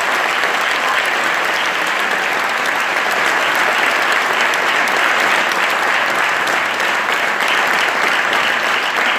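Audience applauding steadily: dense, sustained clapping from a concert crowd.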